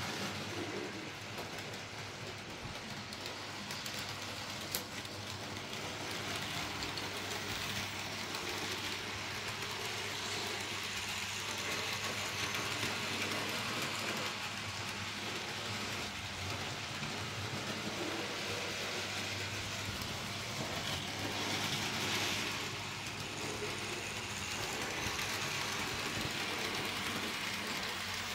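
N gauge model trains running on the layout's track: a steady whirr and rumble of the small locomotive motors and wheels on the rails, with a constant low hum underneath.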